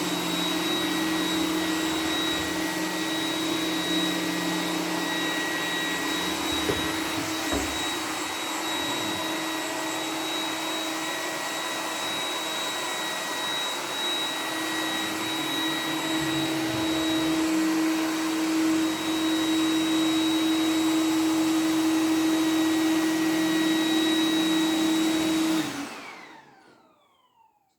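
iRobot Roomba 980 robot vacuum running steadily in boost mode, a continuous suction-fan whir with a steady hum and high whine, somewhat quieter for a stretch in the middle. About a second before the end it shuts off, its motor whine falling in pitch as it spins down to silence.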